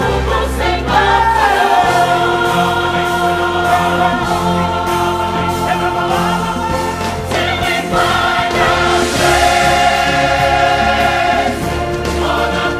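Background music: a choir singing long held notes over an accompaniment.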